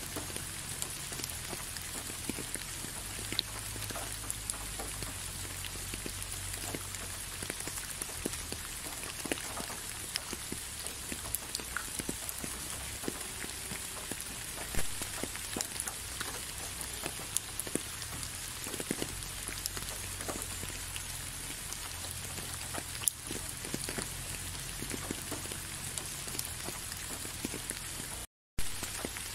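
Steady rain falling, with many separate drops heard as short ticks over an even hiss. The sound cuts out completely for a split second near the end.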